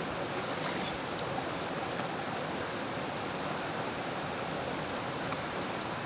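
Shallow mountain stream running over rocks and small cascades: a steady rush of water.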